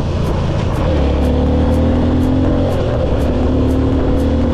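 Motorcycle engine running at a steady pitch while riding, settling about a second in, with a regular high ticking about twice a second over it.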